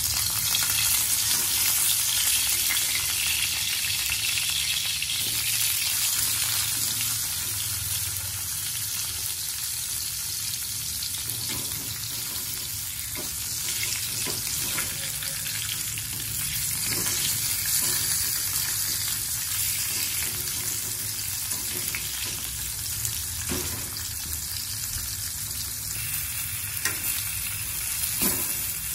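Dried snakeskin gourami pieces sizzling as they fry in hot oil in a wok, a steady hiss that is loudest in the first few seconds. There are a few faint clicks as wooden chopsticks move the pieces.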